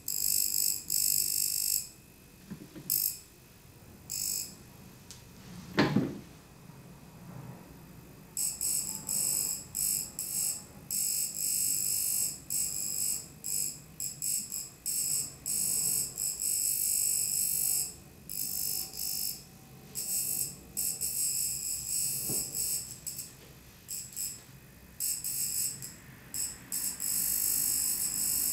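High-frequency facial machine's electrode sparking over skin breakouts: a high-pitched buzzing crackle that comes in short, irregular bursts, starting and stopping many times. A single brief knock about six seconds in is the loudest sound.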